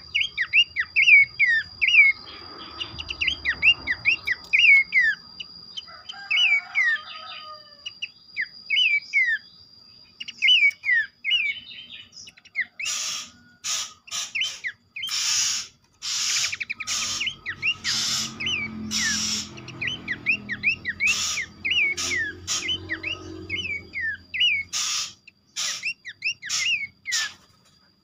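Pelanduk semak babbler calling: a quick series of short, falling whistled notes, joined from about halfway by loud harsh rasping bursts between them.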